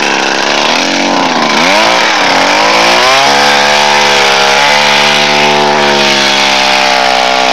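Small engine of a homemade grass-cutting machine running, its speed dropping and rising a few times, then holding a steady fast run from about three seconds in.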